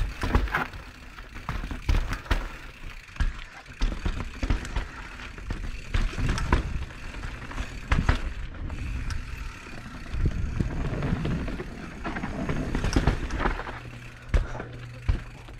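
Mountain bike riding down a dirt forest trail: tyres rolling over dirt and roots, with frequent sharp knocks and rattles from the bike over bumps.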